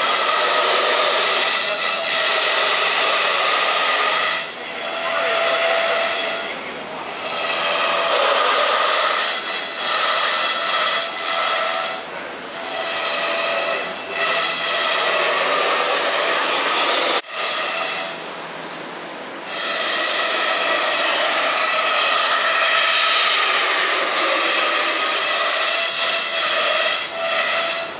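Hiteco 20 kW spindle of a 5-axis CNC router milling a foam boat-hull mould: a steady high whine over the rushing hiss of the cutter tearing through foam, dipping in level several times. A sharp click comes a little past halfway.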